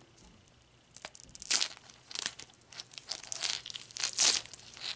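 Clear tape being peeled and torn off the seam of a plastic surprise egg: quiet at first, then a run of short rips starting about a second in, the loudest about a second and a half in and again near four seconds.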